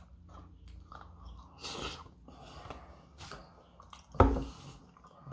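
Chewing and small mouth sounds of someone eating fast food, with a short papery rustle about two seconds in. About four seconds in comes one loud knock as a large paper drink cup is handled and set on the table.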